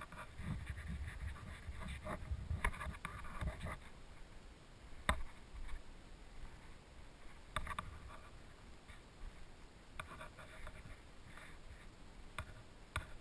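Low rumble and rustling from movement for the first few seconds, then quieter, with a handful of scattered sharp clicks.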